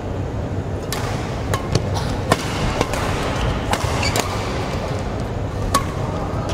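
Badminton rackets striking a shuttlecock in a doubles rally: about seven sharp cracks, roughly every half second to second, with a longer gap before the last one, over steady sports-hall noise.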